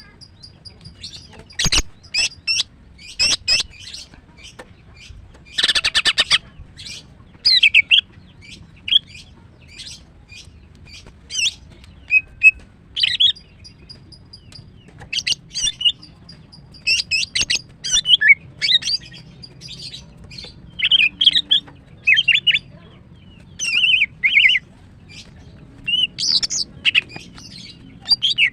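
Female green leafbird (cucak ijo) in breeding condition, calling for a male in quick bursts of high chirps, sharp whistles and short trills, a phrase every second or two. A sharp tap comes about two seconds in, and a brief rustle around six seconds.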